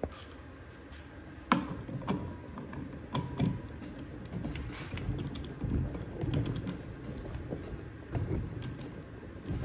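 A torque wrench and socket working on the flywheel nut of a Tillotson 212 engine as the nut is tightened: scattered metallic clicks and clinks, with a sharp knock about one and a half seconds in.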